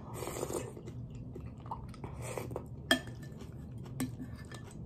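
Quiet chewing of a mouthful of rice porridge, with a spoon clinking twice against a glass bowl, about three and four seconds in.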